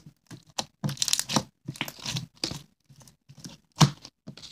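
Clear slime mixed with hair bands being squeezed and stretched by hand, giving irregular crunchy crackles and pokey pops, with one louder snap a little before the end.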